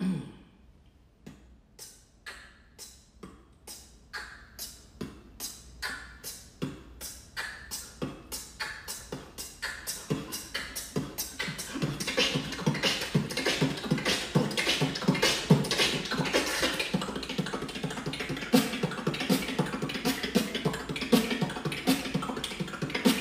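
One person beatboxing: kick and snare sounds, spaced out at first and getting steadily faster and denser into complex rolls. About halfway through, a pitched vocal line joins the percussion.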